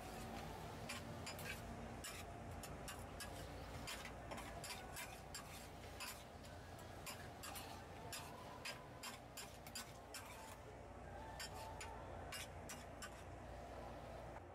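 Metal spatula scraping and clicking against a flat steel griddle while stir-frying sundae (Korean blood sausage) and cabbage. The clicks come in a quick, irregular series, a few a second, over a low steady hum.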